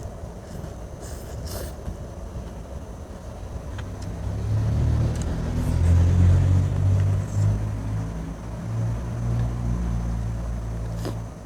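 A motor vehicle's engine rumbling, building from about four seconds in, loudest around six seconds, and stopping abruptly near the end.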